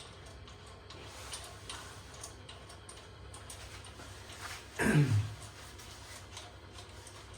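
Faint scattered clicks and light taps, as of plastic toilet parts being handled and fitted, with one short voice-like sound about five seconds in that falls in pitch.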